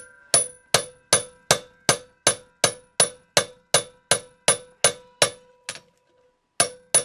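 Steady run of hammer blows on a hand impact driver seated in a Yamaha MT-09 rear brake disc bolt, about two and a half metallic, ringing strikes a second, with a short pause near the end before they start again. The blows are shocking loose disc bolts held fast with red Loctite.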